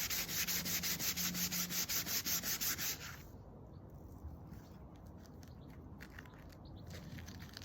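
Wood being sanded by hand with sandpaper in quick, even back-and-forth strokes that stop about three seconds in. Faint handling rustles follow.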